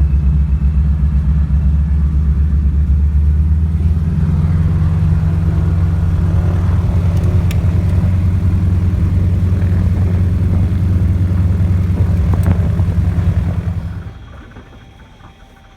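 A steady, loud, low engine drone that falls away sharply about fourteen seconds in.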